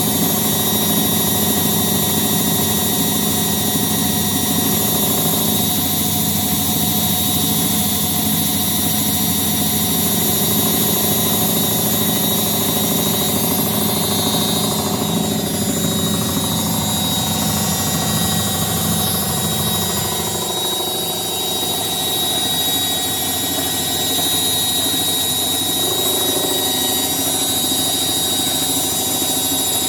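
Indesit WITL106 top-loading washing machine on its spin cycle, the drum running with a loud steady hum and vibration. About halfway through, its pitch slides down as the drum speed changes. The knocking and vibration come from a fault whose cause is still being sought.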